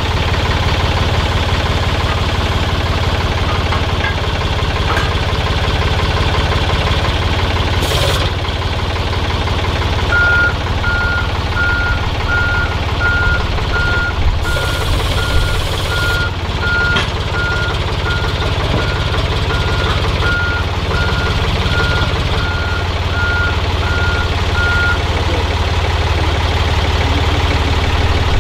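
A heavy vehicle's engine running steadily, with its reversing alarm beeping about twice a second for some fifteen seconds in the middle. There is a single sharp knock about eight seconds in.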